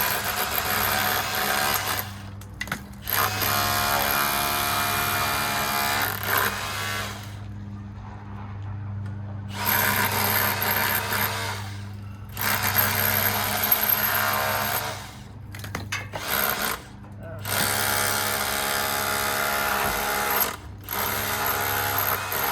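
Handheld power tool running in repeated bursts of a few seconds, stopping and starting, as it strips the old covering off a rock wall.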